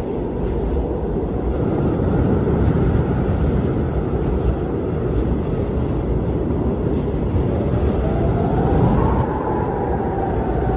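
Strong wind blowing with a steady low rumble. About eight seconds in, a howling whistle rises and then slowly sinks.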